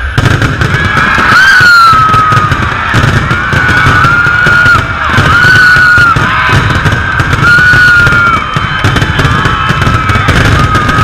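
Aerial fireworks barrage: a dense, rapid run of bangs and crackling, with a high-pitched held note recurring several times over it.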